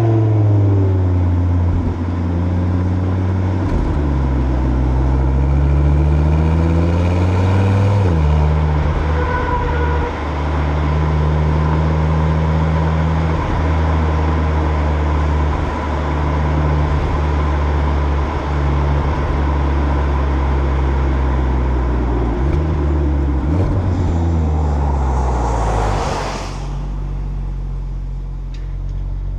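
Exhaust of a 2025 Audi RS3's turbocharged 2.5-litre five-cylinder, heard from behind the car. The engine note climbs under acceleration for several seconds, drops sharply about eight seconds in, then holds steady while cruising. Near the end the revs fall away with a brief rush of noise, and the engine settles to a lower, steady note.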